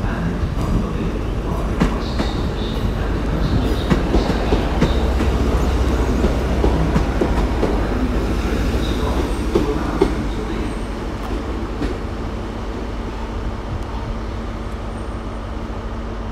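GWR Class 150 Sprinter two-car diesel multiple unit arriving along the platform, its underfloor diesel engines running and its wheels clicking over the rail joints as it passes close by. The sound gets gradually quieter after about ten seconds as the train draws past and slows.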